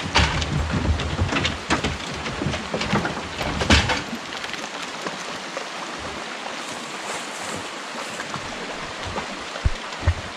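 Shallow creek running steadily. For the first four seconds there are knocks and thumps over a low rumble as hounds jump down out of a wooden dog box on a truck; after that only the steady rush of the water, with two soft thumps near the end.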